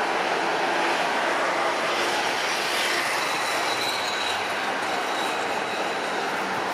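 Boeing 737-700 airliner's jet engines during landing: a steady rushing noise with a faint high whine about three to four seconds in.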